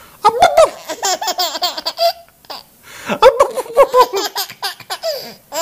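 Baby laughing in two bouts of quick, repeated laugh pulses, with a short pause between them.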